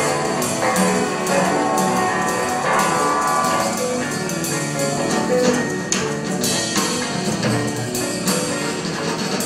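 Live band music: electric guitars playing with maracas shaken along to a steady beat.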